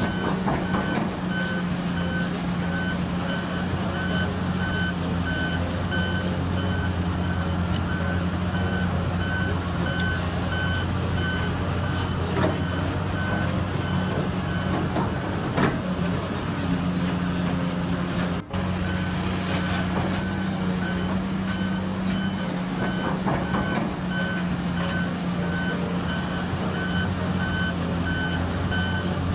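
A heavy machine's backup alarm beeps repeatedly at one high pitch over the steady low drone of diesel engines. The beeping stops for a few seconds past the middle, then starts again. A couple of sharp knocks come around the middle.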